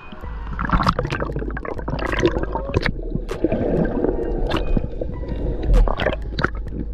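Sea water sloshing and gurgling over a waterproof camera as it dips under the surf and back out, muffled while submerged, with many sharp clicks and knocks of water and grit against the camera.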